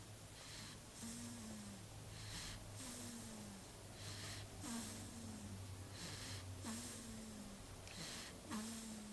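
Faint, regular snoring: about five breaths roughly two seconds apart, each a pair of rasping hisses, the second with a short whistle that falls in pitch.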